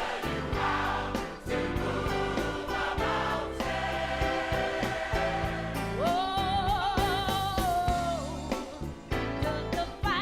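Gospel choir singing over a live band with drums. About six seconds in, the voices hold one long note with vibrato for about two seconds.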